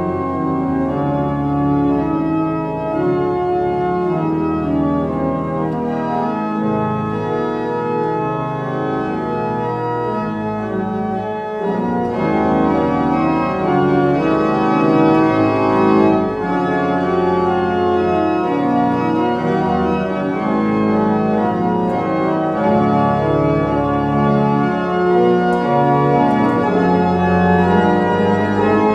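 Pipe organ playing held chords with moving inner lines in a full, sustained texture. It grows louder and fuller about twelve seconds in.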